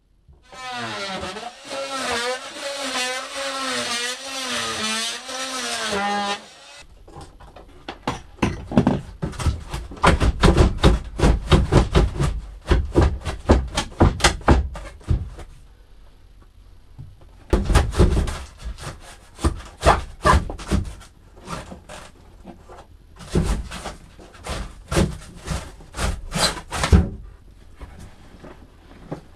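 Tearing out a fiberglass boat icebox shell by hand. First comes a wavering pitched whine for about six seconds, then a long run of knocks, bangs and scrapes in bursts as the shell is pulled and worked loose from the cabinetry.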